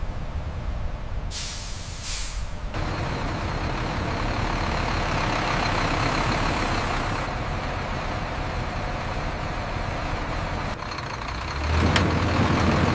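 Heavy vehicle engine running with a steady low rumble, with two short hisses like air-brake releases about a second in. The engine swells louder near the end, with a single sharp click.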